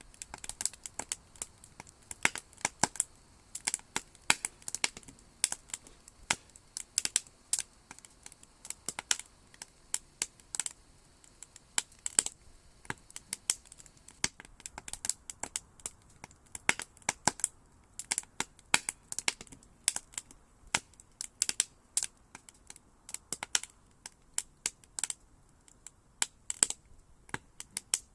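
Campfire logs burning and crackling: irregular sharp pops and snaps, several a second, over a faint hiss.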